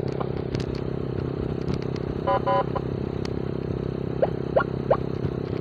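Suzuki Thunder 125's single-cylinder four-stroke engine running steadily. A brief pitched sound comes a little past two seconds in, and three short rising chirps near the end.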